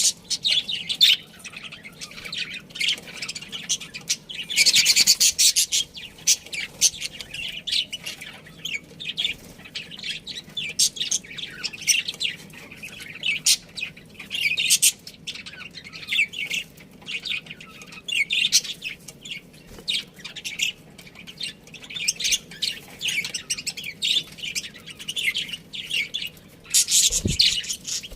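Budgerigars chirping and chattering: many short, high calls overlapping, with a denser burst about five seconds in and again near the end.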